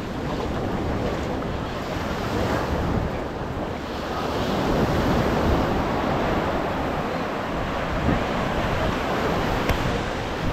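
Ocean surf breaking and washing up a beach, a steady rush that swells about halfway through, with one brief click near the end.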